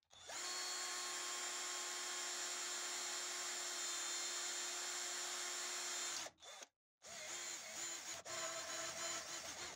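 Power drill with a thin bit drilling into an oiled steel part: a steady motor whine for about six seconds, a brief stop, then running again with a wavering, pulsing pitch under load until just before the end.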